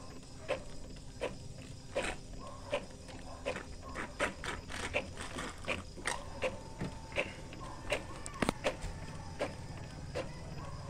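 Epson L-series ink-tank inkjet printer printing a page: its mechanism running, with repeated sharp clicks about one or two a second as the carriage shuttles and the paper is stepped out.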